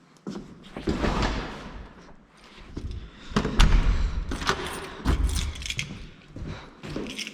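A door being opened and shut: several heavy thuds and knocks, with rustling and handling noise in between.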